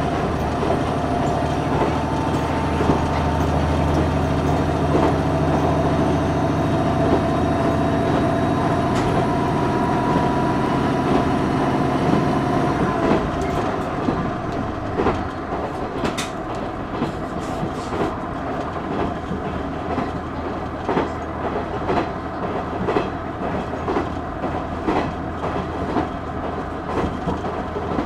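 Inside a KiHa 110 series 200 diesel railcar: its diesel engine drones steadily under power, then about halfway through the throttle is shut off and the car coasts. After that, wheel-on-rail noise and the repeated clickety-clack of rail joints are the main sound.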